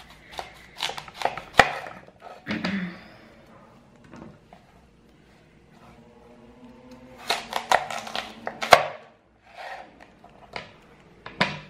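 A kitchen knife slicing through a raw fennel bulb on a cutting board, with sharp knocks as the blade meets the board. The cuts come irregularly, with a quicker run of strokes in the second half.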